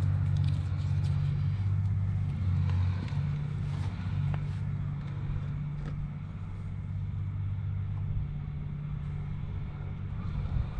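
A steady low engine drone that eases slightly after about eight seconds, with a few faint clicks over it.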